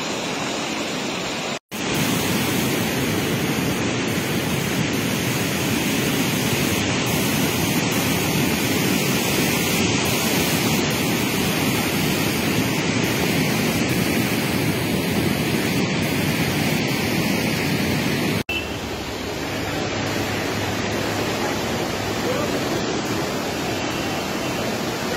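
Fast-flowing floodwater rushing, a steady noise with two abrupt breaks: a brief dropout about two seconds in and a sudden change well past the middle.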